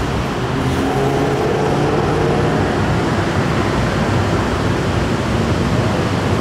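A heavy vehicle's engine runs close by, its hum clearest in the first two or three seconds, over a steady rush of noise.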